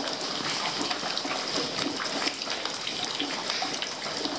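Rainwater pouring and dripping inside a flooded, leaking building: a steady rush of water with many small drips and splashes.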